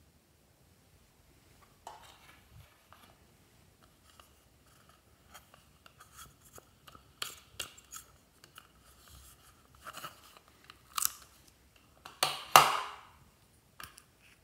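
Hard plastic containers being handled: scattered clicks and crinkly crackles, with the loudest plastic crackle near the end.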